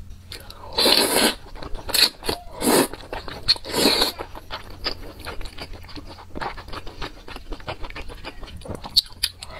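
Close-miked eating of wide, slippery flat noodles in spicy sauce: loud slurps about a second in and again near four seconds, with steady wet chewing and mouth clicks between.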